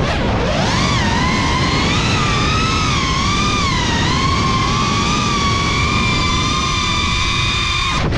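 FPV quadcopter's brushless motors and propellers whining, heard from the onboard camera. The pitch rises and falls continuously with the throttle and dips sharply near the start and again at the very end as the quad flips, over a rush of wind and prop wash.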